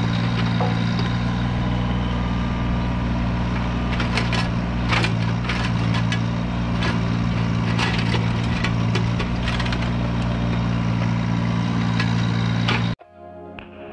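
John Deere mini excavator's diesel engine running steadily under load while the bucket digs a trench, with scattered sharp cracks and scrapes as the bucket tears through sod and soil. The sound cuts off abruptly near the end.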